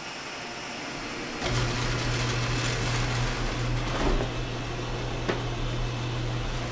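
A screenprinting press starts about a second and a half in and runs with a steady motor hum and mechanical clatter as its squeegee bar moves across the screen. There is a sharp click a few seconds later.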